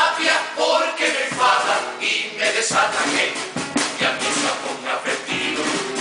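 Male carnival chorus (chirigota) singing a pasodoble together, with classical guitar and drum beats underneath.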